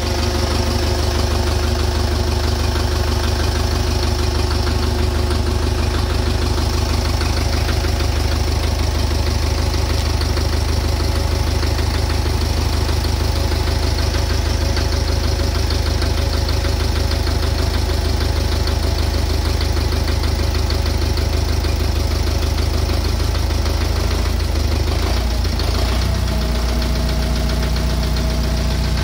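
Engine idling with a rhythmic knock running through its steady hum: the engine knock that the video sets out to show. The engine's note shifts about 25 seconds in.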